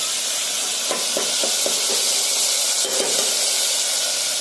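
Onions, tomatoes and curry leaves sizzling in oil in an aluminium pot, a steady hiss, with a few light knocks of a steel ladle stirring against the pot about a second in and again near three seconds in.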